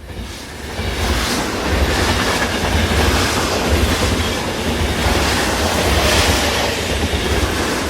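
Loud, steady rumbling and rushing noise of a moving vehicle, with a heavy low rumble and small swells, fading in from silence at the start.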